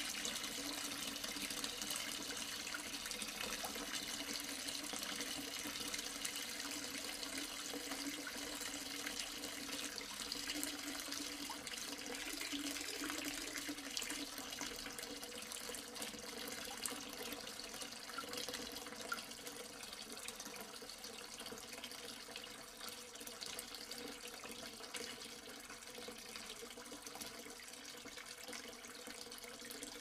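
Water pouring steadily into a sink that already holds standing water, with a continuous splashing rush that gradually gets quieter.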